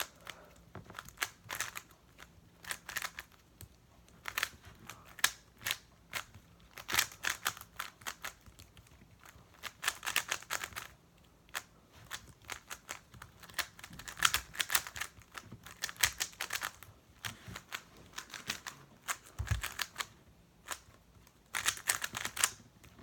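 GAN 356 Air Master non-magnetic 3x3 speedcube being turned fast during a solve: runs of rapid plastic clicking in bursts, broken by short pauses.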